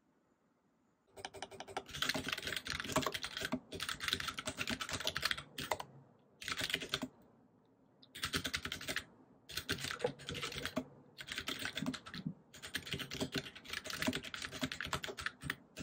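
Typing on a computer keyboard: rapid key clicks in bursts broken by short pauses, starting about a second in.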